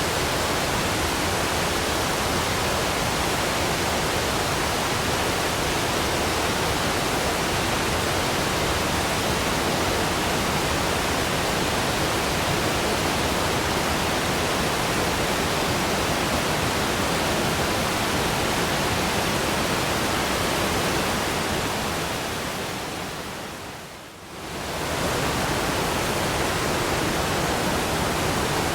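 Waterfall: a steady, even rush of falling water, which fades down and comes back up once near the end.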